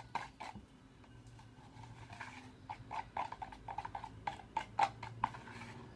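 Spoon stirring a thick mix of white glue, paint and glitter in a container, with irregular clicks and taps of the spoon against its sides.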